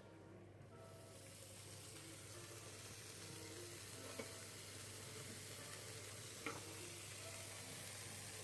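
Small pieces of bacon sizzling in a hot pan, a fine hiss that sets in about a second in and holds steady. Two light clicks sound in the middle and later on.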